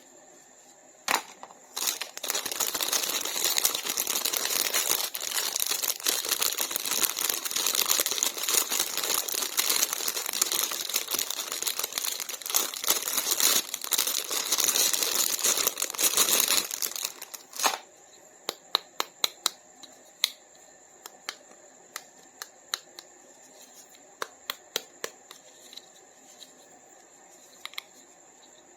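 Toy packaging being unwrapped: plastic and paper crinkling and tearing for about fifteen seconds, then stops. After that come scattered sharp clicks and taps of handled plastic.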